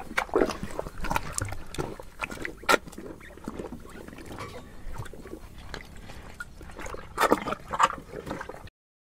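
Cattle chewing and munching feed: irregular crunching and chomping sounds, with a louder stretch about seven seconds in. It cuts off suddenly shortly before the end.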